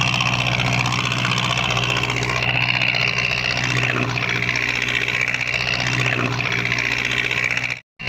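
Boat's Mitsubishi 4D31 four-cylinder diesel engine running steadily under way, a constant low drone. The sound drops out for a moment near the end.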